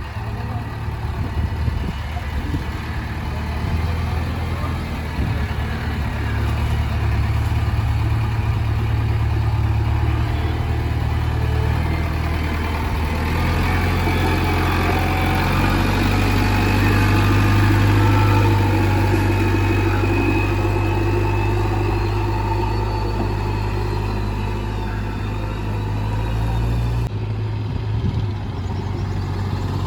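JCB backhoe loader's diesel engine running steadily with a deep, even drone. It grows a little louder toward the middle and shifts abruptly near the end.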